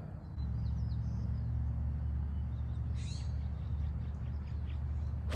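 A steady low rumble with birds chirping, then a golf club strikes the ball off the tee with one sharp crack at the very end.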